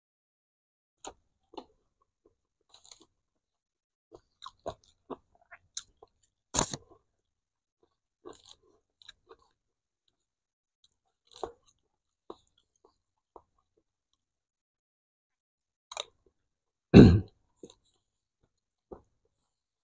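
Close-up eating sounds of rice porridge: scattered chewing and mouth smacks with small clicks of a spoon against a takeaway container. Two louder sudden noises stand out, one about six and a half seconds in and a heavier one about seventeen seconds in.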